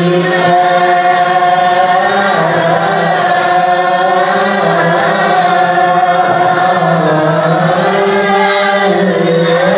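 A man chanting a Qur'anic verse in the melodic tilawah style through a microphone and loudspeaker, holding long, ornamented notes in one unbroken phrase.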